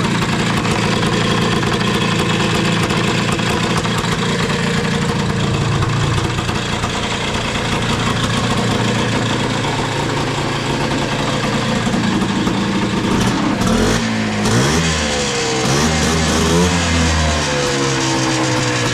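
Engine fitted with a new Keihin PWK 32 carburetor, idling steadily and then revved up and down a few times about two-thirds of the way in. It runs cleanly on the new carb, sounding sweet.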